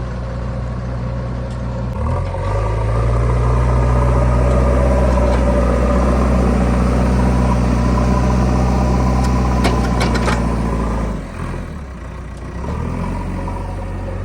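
JCB 3DX backhoe loader's diesel engine running, revved up about two seconds in and held at high revs for around nine seconds, then dropping back toward idle near the end. A few sharp clanks come just before the revs fall.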